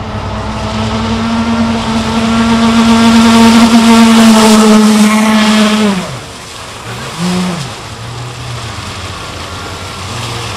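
Electric RC speed boat's motor whining at high throttle, growing louder as the boat comes closer. About six seconds in the whine drops sharply as the throttle is cut. A brief blip of throttle follows, then the motor runs on with a low hum.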